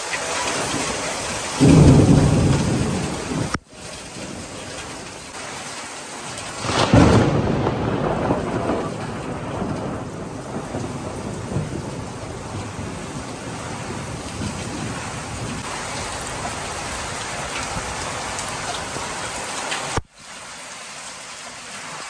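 Heavy rain pouring steadily in a thunderstorm. About two seconds in comes a loud thunderclap that cuts off suddenly, and a second thunderclap about seven seconds in rumbles away over a couple of seconds.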